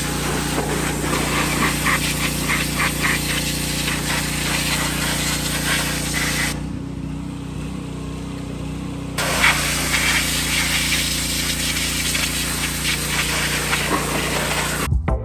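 Pressure washer jet spraying onto a car's bare engine bay, a steady hiss of water over the machine's steady hum. The spray stops for a few seconds about halfway through while the hum goes on, then starts again.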